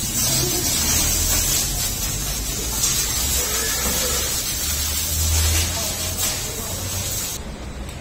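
A steady loud hiss over a low rumble, its upper part cutting off suddenly near the end, with faint wavering sounds in the background.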